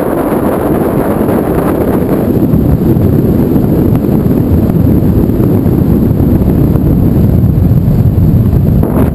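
Wind buffeting the camera's microphone during a tandem parachute descent under an open canopy: a loud, steady rumble.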